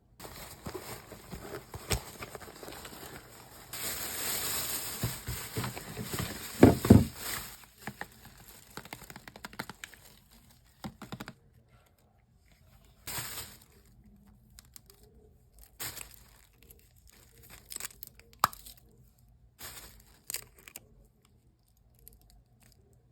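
Packaging being torn open and crinkled while a makeup parcel is unboxed. Continuous rustling and tearing for about the first half, loudest in the middle of that stretch, then a few short separate crinkles.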